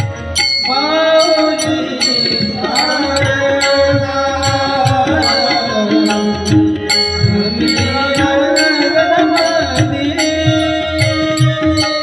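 Marathi devotional kirtan singing: a male voice drawing out long, sliding notes over steady hand-drum strokes and regular cymbal clicks keeping the beat.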